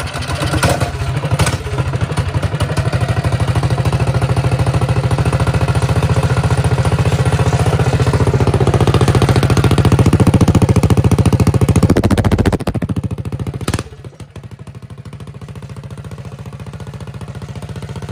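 Mini bike's Caterpillar-badged single-cylinder four-stroke engine, built up with a 272 cam and ported head, running through an open straight exhaust pipe just after a pull start on choke. It runs loud and fast, growing louder up to about 12 seconds in, then drops back over the next two seconds to a quieter, steady idle.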